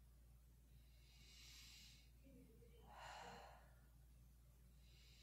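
Faint breathing held in a yoga pose: a few soft breaths in and out, the strongest about three seconds in, over a steady low hum.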